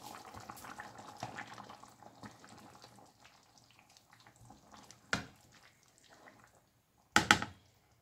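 Stew of beef and potatoes simmering in a frying pan, a steady popping of small bubbles that dies away after about three seconds. Then a spoon stirring it, with a short knock about five seconds in and a louder brief clatter near the end.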